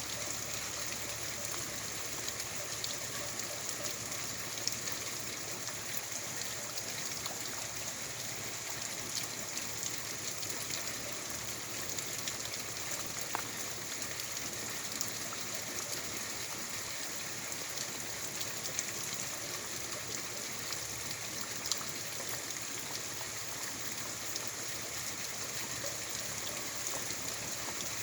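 Heavy rain falling steadily, a dense even hiss with scattered sharper ticks of individual drops striking.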